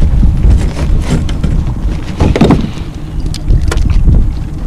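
A boat's outboard motor running steadily at trolling speed, with a few short knocks over it.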